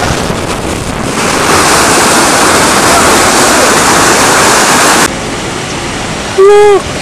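Water rushing steadily through the sluices of a canal lock as the lock chamber empties. It drops off abruptly about five seconds in. Near the end a person gives one short, loud cry.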